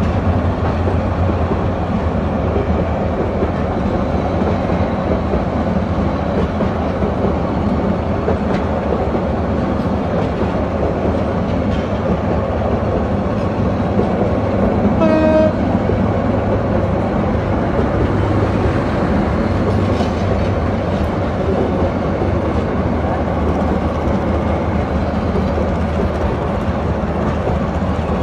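Diesel-hauled intercity passenger coaches rolling past at steady speed, their wheels running on the rails. About halfway through comes one short train horn blast.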